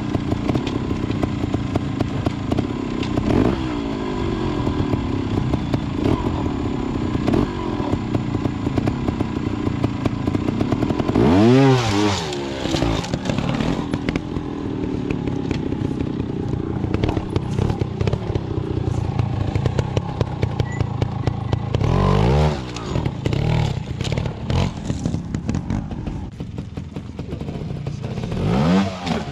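Trials motorcycle engine running at low revs with short, sharp throttle blips about 12 s in, about 22 s in and near the end. Scattered knocks and clatter run through it as the bike works over obstacles.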